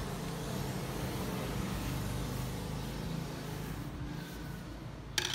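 A steady low hum with a hiss over it, like a motor running in the background, and one short sharp click near the end.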